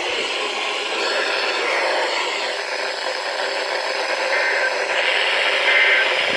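Weather radio receiver hissing with static on a weak channel, with a few faint short beeps about every second and a half in the second half.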